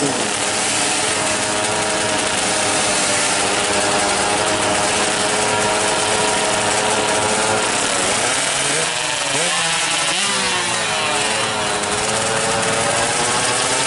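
Two 116 cc two-stroke underbone drag bikes revving at the start line, engines held high, with their pitches wavering and crossing about two-thirds of the way through.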